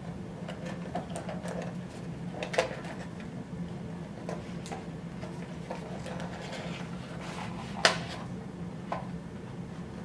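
Cardboard processor retail box being opened by gloved hands, its inner card tray slid out: rustling and scraping of card with a few sharp taps, the loudest near the end as the tray is set down on the table.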